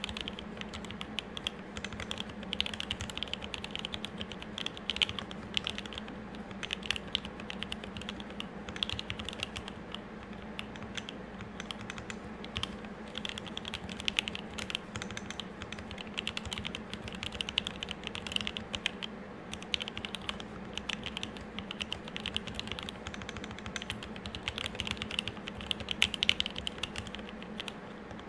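Continuous, fast typing on an M65-A custom mechanical keyboard with lubed Tealios 67g linear switches, a brass plate and GMK keycaps: a dense, uneven stream of key clacks. A steady low hum sits underneath.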